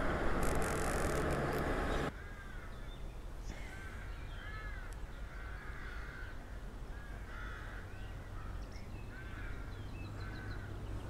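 Birds calling in short, repeated arching notes, heard after a hiss of noise that stops abruptly about two seconds in.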